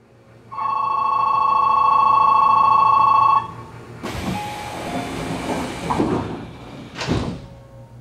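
A steady ringing departure signal sounds for about three seconds. Then the train's sliding doors close with a hiss of air and rumbling, shutting with a sharp thud about seven seconds in.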